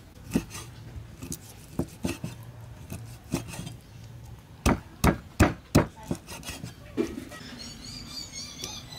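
Cleaver chopping a dried ingredient on a round wooden chopping block: scattered knocks, then four loud chops in quick succession about halfway through.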